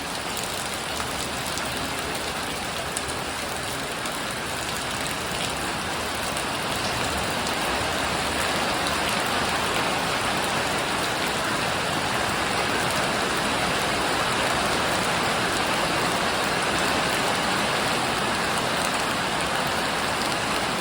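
Heavy rain pouring down, with water falling off a house roof, a steady dense hiss that grows a little louder about a third of the way in.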